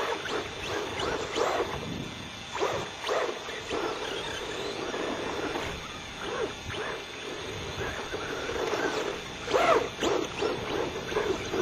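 Losi Speed-T radio-controlled truck driving on dirt, its motor and tyres sounding in short, uneven bursts as it speeds up and slows; the loudest bursts come near the end.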